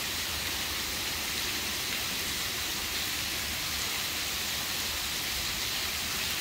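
Steady rain hissing on the surface of a flooded river, an even sound that does not let up.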